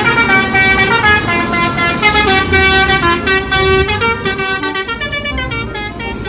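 Bus telolet horn, a multi-tone air horn, playing a quick tune of stepped notes over the low rumble of the bus.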